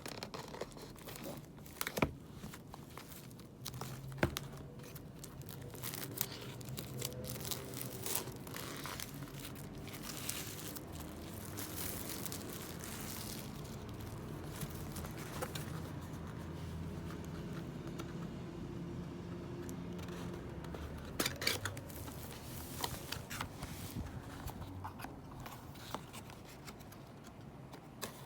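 Album packaging being unwrapped and handled: plastic and paper crinkling and tearing, with a few sharp clicks and taps. A faint low hum runs underneath through the middle stretch.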